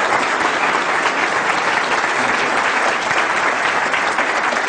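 Audience applauding steadily in a lecture hall, a dense crowd of clapping hands.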